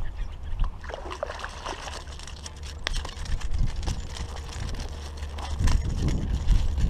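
Water splashing and trickling over a steady low rumble, with scattered light clicks.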